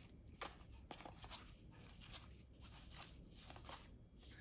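Faint handling of 1992-93 Fleer basketball cards: soft flicks and rustles, about two a second, as the cards of a freshly opened pack are flipped through one by one.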